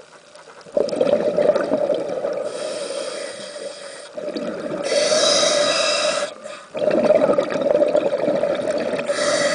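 Scuba diver breathing through a regulator underwater: a long bubbling exhalation starting about a second in, a hissing inhalation, then another long bubbling exhalation.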